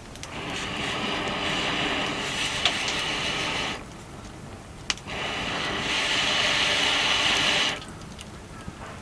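A steady hissing, rushing noise that starts and stops abruptly in two long spells, with a sharp pop in the quieter gap between them.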